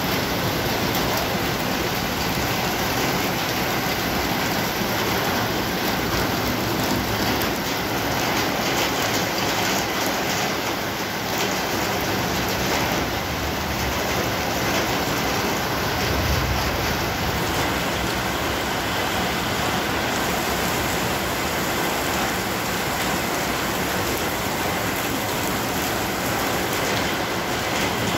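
Heavy rain pouring steadily onto the street and parked cars, a dense even hiss, with a brief low thud a little past halfway.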